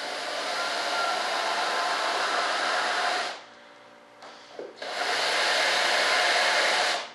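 Electric drill running in two short bursts, drilling screw holes into a fiberglass mold: one of about three seconds, then after a short pause a second of about two seconds.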